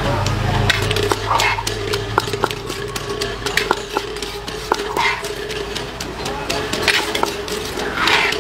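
A metal spoon and pestle clink and scrape against a wooden mortar as salad is scooped out onto a plate. The sharp clicks come at irregular intervals throughout, over a faint steady hum.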